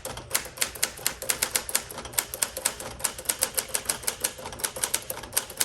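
1959 Smith Corona Sterling manual portable typewriter being typed on steadily: a quick, even run of key strikes, about five a second.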